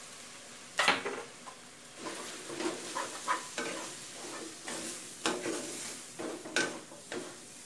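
Wooden spatula stirring and turning glass noodles, cabbage, shrimp and pork in a hot nonstick wok, over a steady sizzle of frying. Irregular scrapes and knocks of the spatula against the pan; the loudest comes just under a second in, and they come more often from about two seconds in.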